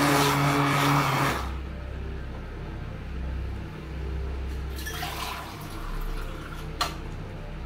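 Handheld immersion blender running through gram-flour and yogurt kadhi batter in a steel bowl, a loud steady motor whine that cuts out about a second in. After that, quieter swishing of the liquid batter with a low rumble, and one sharp click near the end.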